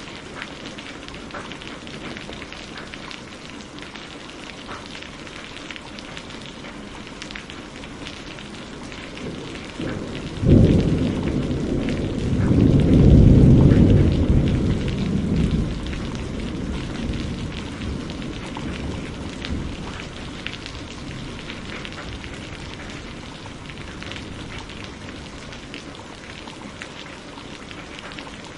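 Steady rain falling, with one thunderclap about ten seconds in: a sharp crack, then a deeper rumble that swells louder and fades away over about five seconds.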